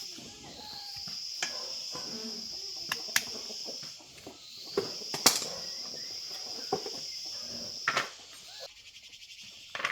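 An insect calling with a high, steady buzz that swells in and holds for about three and a half seconds, stops, then starts again and holds about four seconds more. Sharp clicks or knocks sound over it several times, the loudest about five seconds in.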